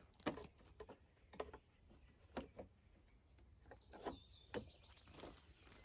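A handful of faint plastic clicks and knocks, spread out, as a plastic air filter cover is handled and pressed into place on a lawn mower engine.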